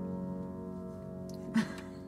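Upright piano holding a sustained chord that rings out and slowly fades, with no new notes struck. A single short bump sounds about one and a half seconds in.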